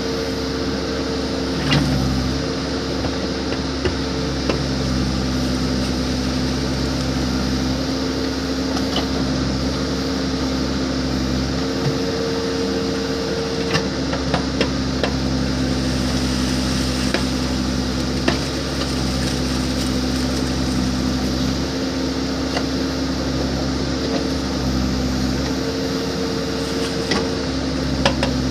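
Backhoe loader's diesel engine running steadily as the machine works, its note shifting every few seconds, with scattered sharp clicks and knocks.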